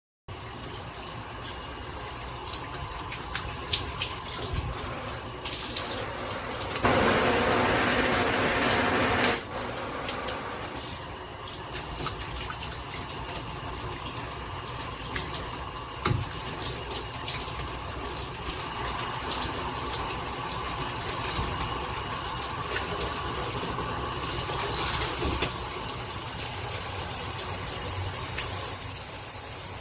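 Shower head spraying water, a steady hiss of running water. About seven seconds in it grows louder for a couple of seconds, and near the end a brighter, higher hiss sets in for about five seconds, as the spray changes.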